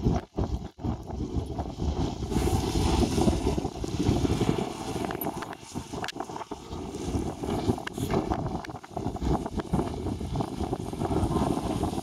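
Wind buffeting the microphone: a heavy, uneven low rush that rises and falls in gusts, with no clear engine note standing out.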